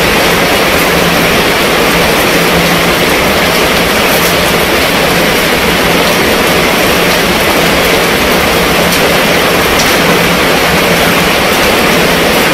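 Steady heavy rain falling on a fabric canopy tent overhead and splashing on wet pavement, with the odd sharper drop striking close by.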